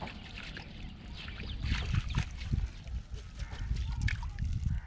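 Water sloshing and dripping as a ring net is lifted and worked by hand in shallow water, with irregular splashes that grow busier and louder about a second and a half in.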